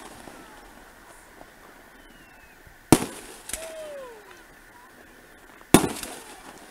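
Aerial fireworks shells bursting: two sharp bangs about three seconds apart, each dying away over about a second.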